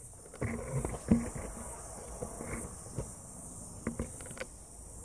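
Insects chirring steadily at a high pitch, with a few faint knocks.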